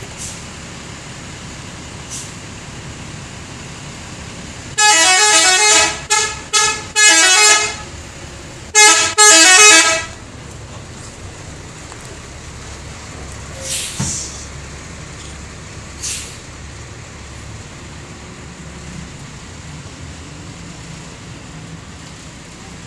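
KSR Trans bus's telolet horn, a multi-tone musical air horn, playing its stepping tune in a run of loud bursts between about five and ten seconds in, over a steady engine rumble. A short hiss of air follows near fourteen seconds.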